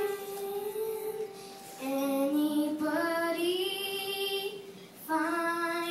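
A young girl singing into a microphone in long held notes, a new phrase starting about two seconds in and another near the end.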